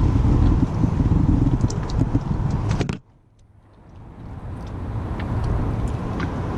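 Boat motor running with a steady low rumble. It cuts out abruptly about three seconds in and gradually swells back up.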